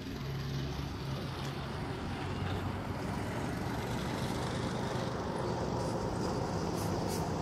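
Motor vehicle engine running with a low steady hum, gradually growing louder as it approaches.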